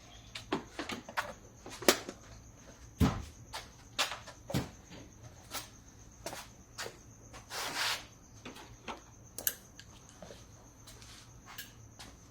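Handling noises: a string of separate clicks, taps and knocks, with a short scraping rustle about eight seconds in, as a camera is repositioned and a coolant bottle and caps are handled.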